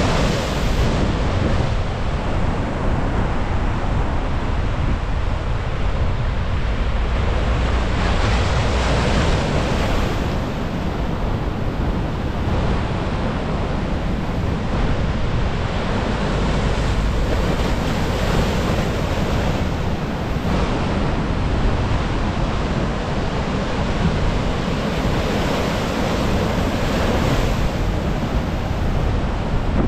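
Sea waves breaking and churning against shore rocks and concrete breakwater blocks, a continuous rush of surf that swells louder in surges several times. Wind buffets the microphone underneath as a low rumble.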